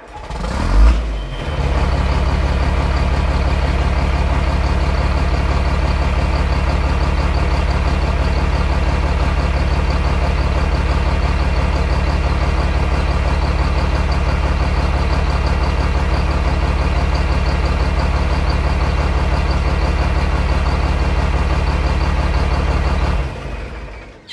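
A large engine, such as a tractor's diesel, running at a steady speed. It surges briefly about a second in, then holds an even drone and cuts off near the end.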